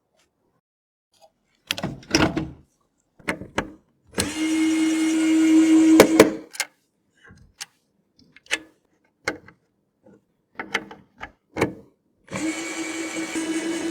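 Small electric screwdriver whirring steadily for about two seconds, then starting again near the end, with sharp clicks and taps of PC parts and screws being handled in between.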